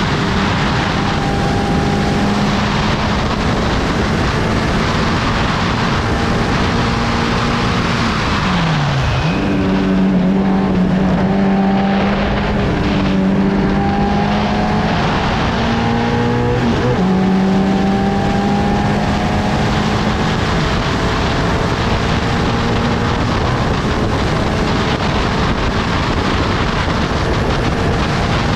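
Formula 750 race car engine running hard at speed, heard onboard over a rushing noise. About eight and a half seconds in, the engine note falls sharply and then jumps back up, and it dips and recovers again at around seventeen seconds.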